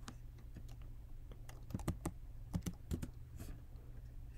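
Typing on a computer keyboard: a scatter of separate key clicks, bunched about one and a half to three seconds in, over a faint steady low hum.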